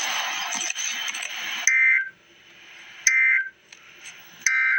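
Emergency Alert System End-of-Message signal: three short warbling data bursts of digital tones, about 1.4 seconds apart, marking the end of the alert. They follow a hiss of about a second and a half.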